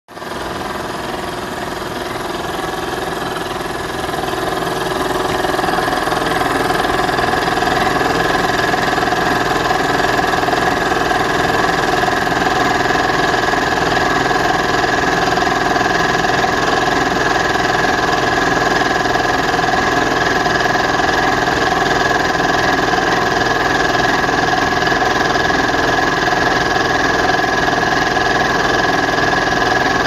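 Meiji electric piston air compressor running steadily and pumping up its tank, the gauge pressure climbing toward about 9 kg/cm². It starts right at the opening and grows a little louder over the first few seconds.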